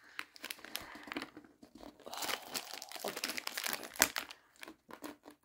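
Small clear plastic bag crinkling as it is pulled and picked at with fingernails to tear it open, the tough plastic resisting; a sharper crack about four seconds in.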